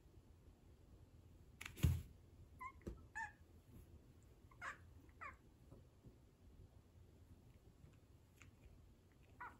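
A domestic cat giving several short, clipped meows, with a soft thump about two seconds in and one more short call near the end.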